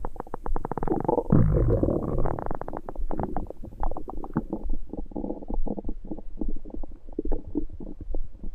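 Upset stomach gurgling and growling: a fast, irregular run of wet clicks and bubbling rumbles.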